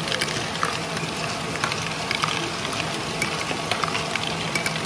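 LEGO Great Ball Contraption modules running: a dense, steady clatter of small plastic balls rolling, dropping and knocking through plastic tracks and lifts, made of many small clicks, with a low steady hum underneath.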